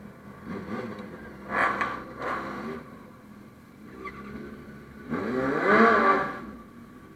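Honda CB650F motorcycle's inline-four engine under way, its revs rising and falling a couple of times, the longest and loudest rev rising and then falling about five seconds in.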